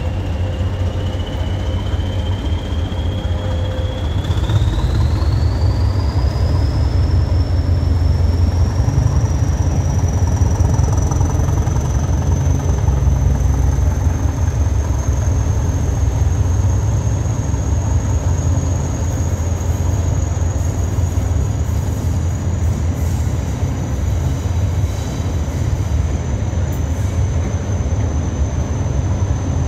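Hastings diesel-electric multiple unit 1001 pulling away under power, its English Electric diesel engine giving a heavy low rumble. A high whine rises steadily in pitch over the first several seconds as the train gathers speed, then holds.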